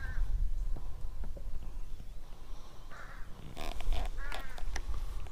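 A crow cawing, several harsh calls that come in a cluster a few seconds in, over a steady low rumble.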